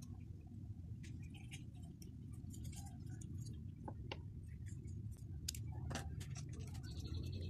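Small hard-plastic toy parts clicking and tapping as they are handled and pulled apart by hand, a scatter of light separate clicks over a steady low background hum.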